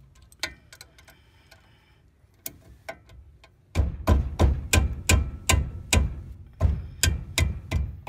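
End-screen background music with a steady percussive beat of about three strokes a second. The beat drops out for the first few seconds, leaving only sparse faint ticks, then comes back in full about four seconds in.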